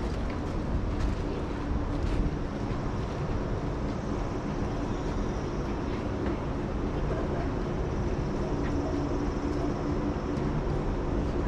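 Odakyu Line electric train running through the station: a steady rumble with a low hum, and a faint high whine that comes in about a third of the way through.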